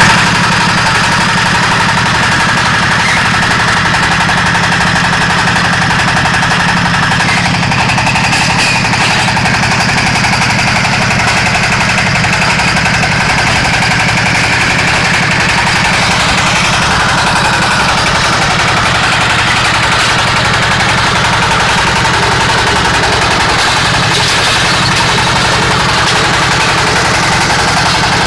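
Diesel engine of a small crawler-mounted hydraulic drilling rig running steadily: a loud, rapid chugging, with a higher whine above it that changes pitch a few times.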